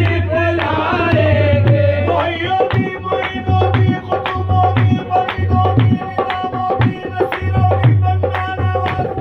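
Qawwali music: a harmonium, a hand drum and rhythmic handclaps keep a fast, even beat. A voice sings a wavering, sliding phrase for the first two seconds or so, then the harmonium holds steady notes under the drumming and clapping.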